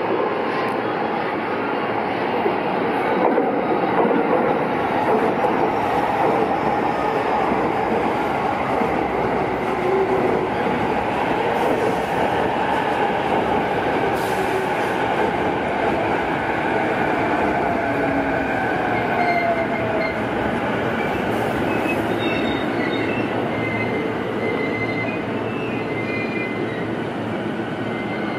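Electric train running on the rails, a steady rumble that is loudest a few seconds in and eases off slowly, with faint thin wheel-squeal tones in the second half.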